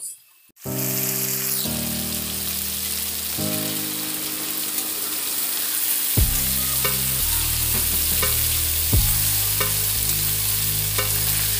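Marinated chicken frying in a kadai with a steady sizzling hiss as it is browned (kosha). Background music plays over it: held chords at first, then a steady beat with regular percussion strikes from about six seconds in.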